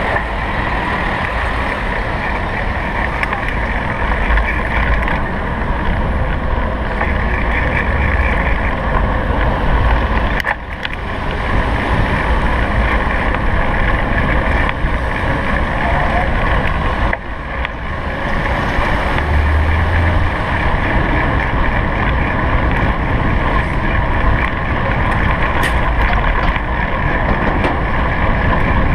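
Wind rushing over a handlebar-mounted GoPro's microphone while the bicycle rides along, over the rumble of the road and the city traffic around it. The steady noise dips briefly twice.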